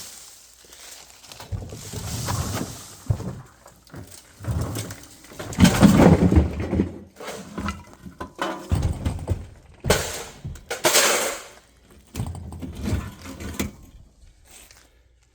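A refrigerator being stood back up and knocked about: irregular bangs, scrapes and clattering, loudest about six seconds in.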